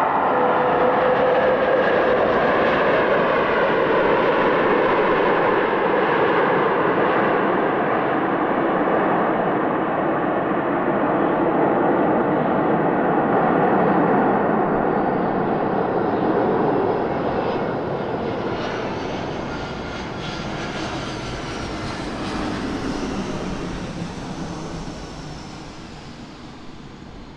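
Twin-engine jet airliner engines heard close to a runway during landings: loud and steady for the first two-thirds, then fading over the last ten seconds, with a high whine rising and falling near the end.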